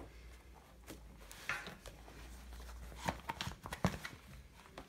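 Handling sounds as a tablet and a sketchbook are moved about on a wooden table: a soft rustle and several light taps and knocks, the sharpest a little under four seconds in.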